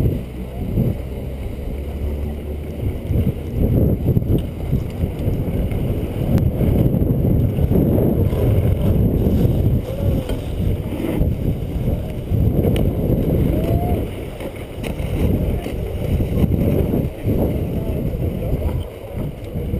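Wind buffeting the microphone of a body-mounted camera as the wearer skis downhill, an uneven low rumble that surges and dips.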